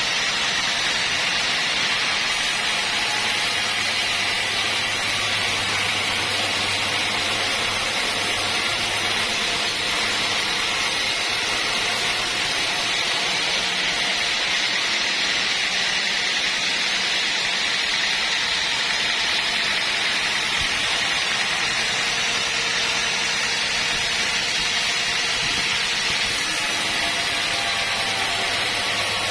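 Sawmill machinery running steadily: a loud, unbroken mechanical noise with a hiss-like upper band and a faint low hum.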